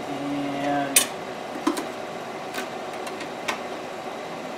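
A few scattered light clicks from handling the vacuum former's metal clamping frame and the formed plastic sheet, the sharpest about a second in. A short low hum in the first second.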